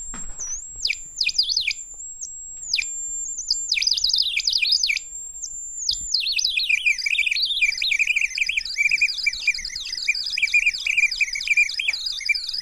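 Handheld analog EMF meter's audio alarm sounding with the meter reading full scale: a high, steady electronic whine that keeps dipping and warbling. About six seconds in it turns into a fast, chirping warble that wavers up and down.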